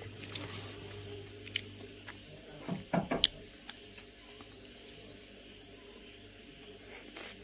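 An insect trilling steadily in the background: a high, rapid, evenly pulsed note. A few soft clicks of a metal spoon while eating, the loudest about three seconds in.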